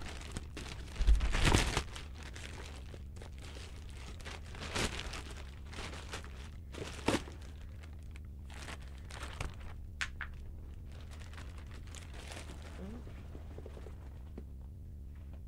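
Plastic packaging crinkling and rustling as a parcel is handled, with the loudest burst about a second in and scattered shorter crinkles after it that thin out near the end.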